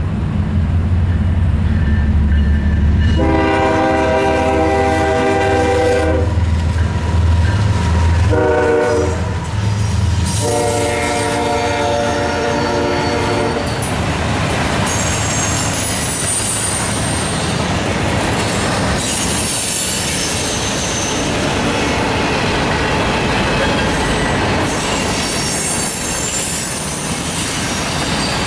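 Norfolk Southern freight train's diesel locomotive passing with a low engine rumble and sounding its air horn: a long blast, a short one, then another long one. This is the close of the grade-crossing horn signal. After that the freight cars roll past with steady wheel clatter and high-pitched wheel squeal.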